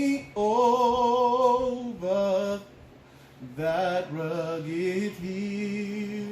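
A voice singing a slow gospel hymn, holding long wavering notes in two drawn-out phrases.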